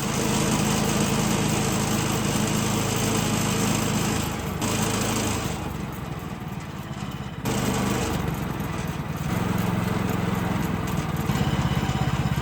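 Small gasoline engine of a Woodland Mills portable sawmill running. It starts abruptly, dips in level for a second or two past the middle, then picks up again.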